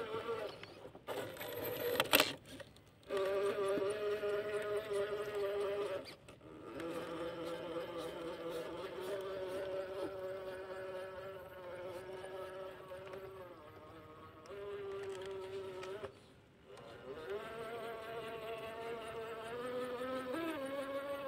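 Traxxas TRX-4 RC crawler's electric motor and geared drivetrain whining as it crawls, the pitch shifting with the throttle and cutting out briefly several times. A sharp knock about two seconds in.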